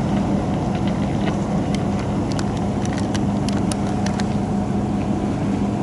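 Steady low engine drone with a constant hum, with a few faint clicks scattered through it.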